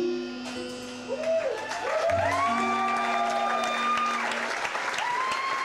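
A guitar-backed music track plays its last held notes, then an audience applauds and cheers, with rising and falling whoops over the clapping.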